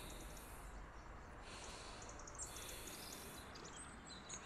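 Faint outdoor garden ambience: a high-pitched chirring that comes and goes in patches about a second long, with a few faint bird chirps near the end.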